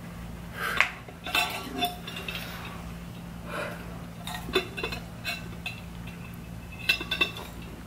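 A metal straw clinking against an insulated stainless-steel tumbler as it is handled and sipped from: several light metallic clinks spread out, some in quick pairs.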